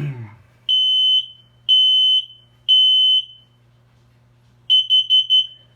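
Smoke alarm sounding on its test button, a loud high beep at one pitch: three long beeps about a second apart, then after a pause a quick run of about five short beeps near the end.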